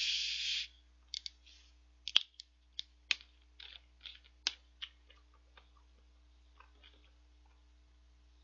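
Plastic cola bottle's screw cap twisted open: a short, loud hiss of escaping carbonation, then a string of sharp clicks and crackles from the cap and plastic bottle, the loudest about two seconds in.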